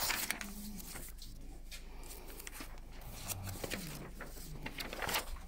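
Quiet room tone in a small meeting room, with a few faint rustles and taps and brief low murmured voices.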